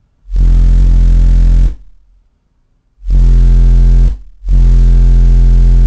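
Two 15-inch Fi BTL car subwoofers on a roughly 5,000-watt system hitting very loud, deep sustained bass notes in three blasts, each stopping abruptly. The bass is loud enough to clip the recording.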